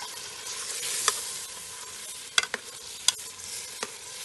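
Spoon stirring tinned mackerel in a pot over a wood fire, with a steady sizzling hiss and about five sharp clicks of the spoon against the pot.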